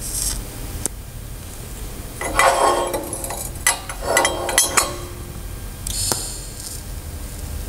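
Metal pipes clinking and rattling against a steel welding table, the loudest sound, between short hissing TIG tack welds on copper and steel pipe at the start and about six seconds in.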